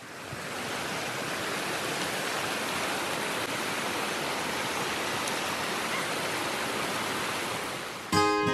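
Mountain stream rushing over rocks, a steady, even rush of water that fades in at the start. Acoustic guitar music comes in near the end.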